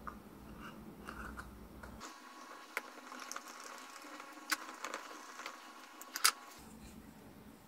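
Faint clicks and small ticks of a screwdriver working small screws into a plastic PVC housing, with plastic parts tapping as they are handled; the sharpest click comes a little after six seconds in.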